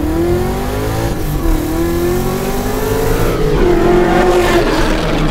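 LS-swapped Nissan 350Z's junkyard LQ9 V8 at full throttle on a 0 to 60 run, revving up hard through the gear, dropping sharply at an upshift about three and a half seconds in, then pulling on before the revs fall off near the end.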